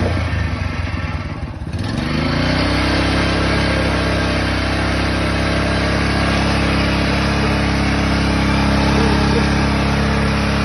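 Engine of a portable borewell drilling machine running. About a second in it briefly slows and drops in level, then picks back up within a second and runs on steadily.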